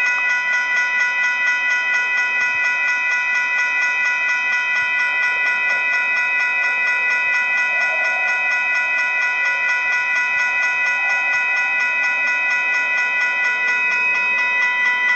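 Railroad crossing bell ringing on and on in a steady, even rhythm, a ringing tone struck again and again without a break. The crossing is malfunctioning and keeps ringing with its lights flashing.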